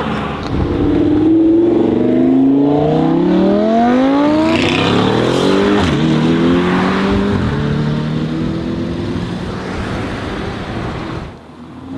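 Mansory Venatus Lamborghini Urus's twin-turbo V8 accelerating hard: the engine note climbs for about five seconds, drops at a gear change, climbs again, then dies down near the end.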